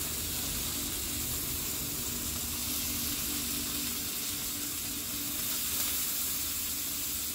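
Green vegetables frying in oil in a pan over a wood fire: a steady sizzle.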